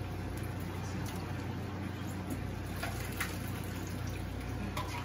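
Hot water running from a kitchen tap in a steady, even rush, over a low steady hum.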